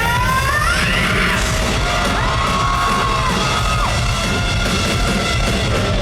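Live rock band playing loudly with heavy drums and distorted instruments; a high line slides up over the first second, then two held notes follow. A hall echo surrounds it.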